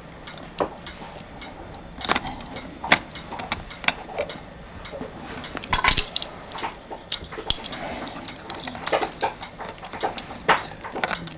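Irregular small clicks and light rattles of the electric blanket control's rotary switch and wiring being handled inside its open plastic case.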